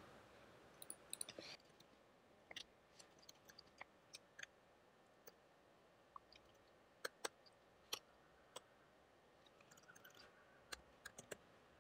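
Near silence with faint, scattered clicks of computer keys and a mouse, a few at a time, as code is typed and selected.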